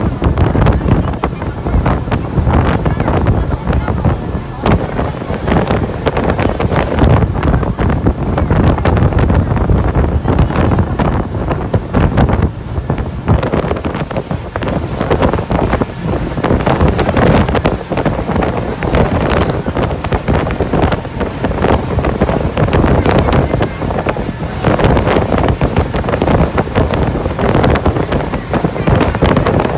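Open speedboat under way across choppy water, with loud, gusting wind buffeting the microphone over the boat's motor and the rush of water.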